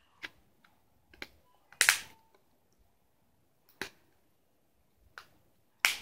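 Plastic battery cover of a Huawei Glory phone snapping into place on the handset: a series of about six sharp clicks as its clips are pressed home around the edges. The loudest click comes about two seconds in and another just before the end.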